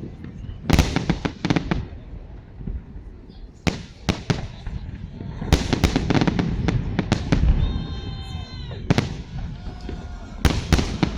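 Fireworks salute: shells bursting in quick clusters of sharp cracks and pops, a new volley every second or two. A single held high tone cuts through briefly between volleys.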